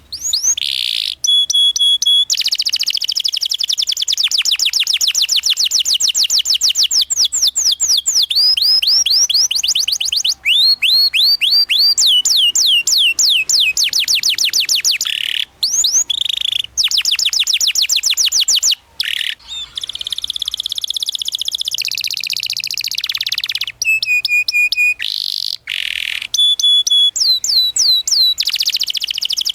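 Domestic canary singing a long, continuous song. It runs fast rolls of rapidly repeated sweeping notes, with some held whistled tones and a few brief pauses.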